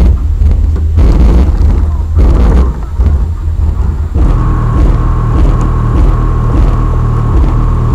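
Bass-heavy rap music played loud through a car's 12-inch Alpine subwoofers, heard from outside at the trunk, with the deep bass far louder than the rest. About four seconds in, the beat changes to a steadier low bass with one high note held over it.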